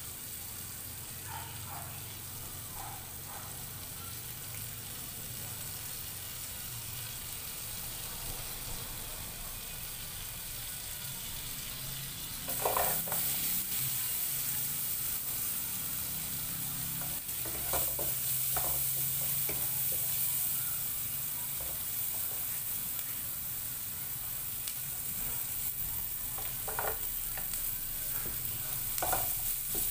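Oil sizzling in a nonstick frying pan; about twelve seconds in, the sizzle turns louder and brighter as chopped red onion goes into the oil. Later a wooden spatula stirs the onion and ginger with a few short knocks and scrapes against the pan.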